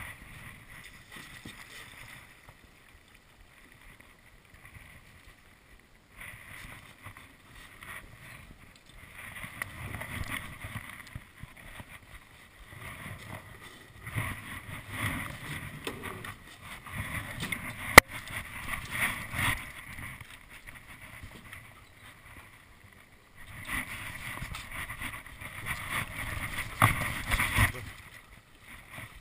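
Water rushing and splashing around a drift boat going down a river, coming in uneven swells of noise. One sharp knock about eighteen seconds in.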